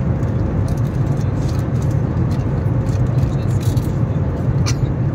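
Steady low drone of an airliner cabin in flight: engine and airflow noise, with light clinks from a service trolley scattered through it.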